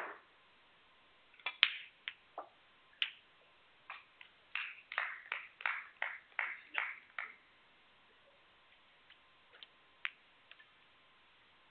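Snooker balls clicking: a sharp click about one and a half seconds in as balls strike, a few single clicks, then a quick run of lighter clicks and knocks for about three seconds as a red is potted and the balls settle.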